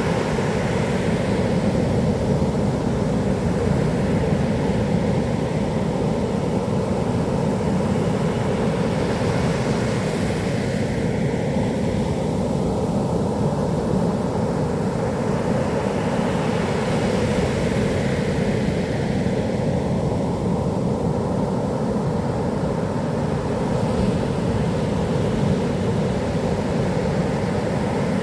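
Heavy typhoon surf breaking on the beach: a steady low roar, with the hiss of breaking water swelling and fading every several seconds.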